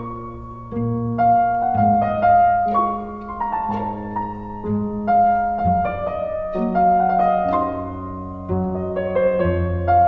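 Background music: solo piano playing a melody over low bass notes, a new note about every half second.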